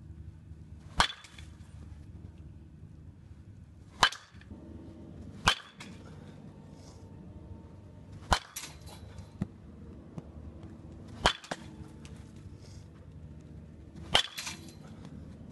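A baseball bat hitting balls in a batting cage: six sharp cracks, one every two to three seconds, some followed by a fainter knock.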